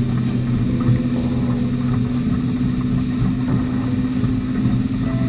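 Motorboat engines running steadily with the boat under way, a loud, even low drone mixed with rushing water and wind noise.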